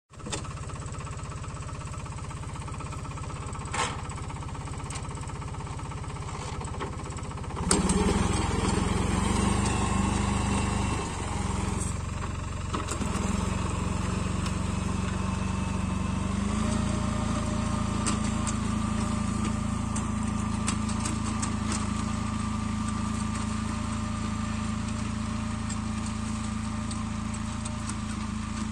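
Captain 280 4WD compact tractor's diesel engine running steadily under load, driving a rear-mounted rotavator that is tilling the soil. The sound jumps louder about eight seconds in and then holds steady.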